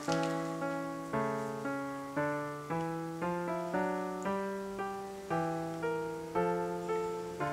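Background piano music: an even run of struck chords, about two a second, each fading before the next.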